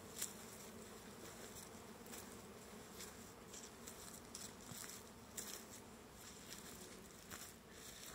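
Honeybees buzzing around the hives: a faint, steady hum, with a few soft crackles scattered through it.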